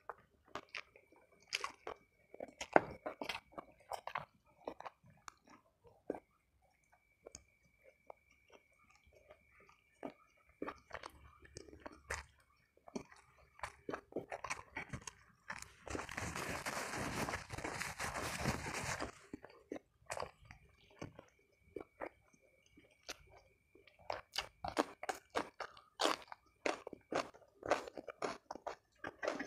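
Close-miked eating of fried chicken: wet chewing and crunchy bites of the fried crust, many small crackles throughout, with a steady rushing noise lasting about three seconds past the middle.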